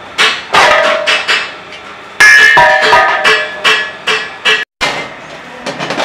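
Thin sheet metal clanging and ringing: a quick series of sharp metallic hits, each leaving a short ringing tone, as the sheet is handled and curled into a cylinder on a plate rolling machine.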